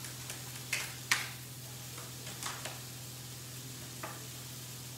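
Kitchen knife chopping a chilli on a plastic chopping board: a handful of separate sharp knocks, the loudest about a second in, over a steady low hum.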